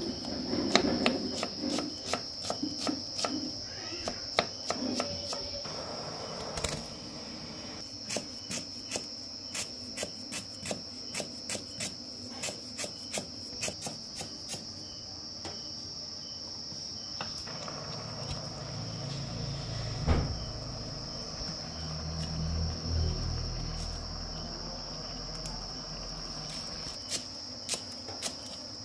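A large kitchen knife chopping vegetables on a wooden chopping board: a run of sharp knocks, irregular at first, then steady at about two a second. A steady high-pitched tone runs beneath.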